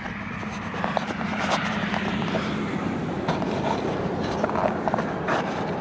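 Phone microphone being handled as the phone is propped on the ground: fingers rubbing and scraping over it, with scattered small knocks, over a steady low hum.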